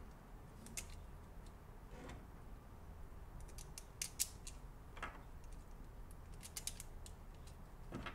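Faint clicks and small rattles of plastic GoPro mount extension pieces being handled as screws are fitted through their hinges, coming in small clusters around the middle and near the end.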